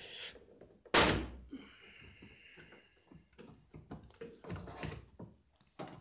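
Plastic dashboard trim snapping free of its clips with one loud crack about a second in. After it come scattered clicks and rustling as the loose plastic piece is worked free, and a smaller click near the end.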